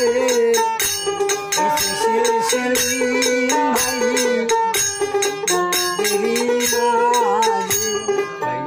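Bengali Baul folk song: a man sings, accompanied by his own plucked dotara, with a rhythmic jingling percussion keeping time throughout.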